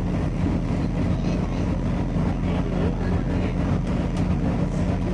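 A steady low mechanical hum with an even background noise, like a running vehicle or machine. There are no firework bangs.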